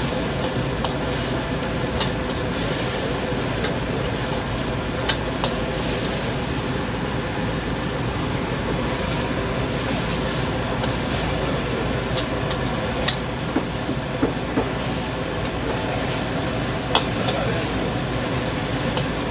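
Stir-frying in a wok over a high flame: a steady sizzling rush, with sharp clanks of the metal spatula against the wok every few seconds.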